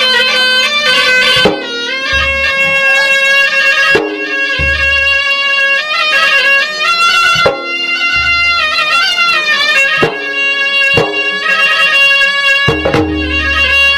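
Gendang adat Maros: traditional drums struck with sharp cracks every few seconds and deep booms, under a continuous shrill reed-pipe melody that steps up and down in pitch.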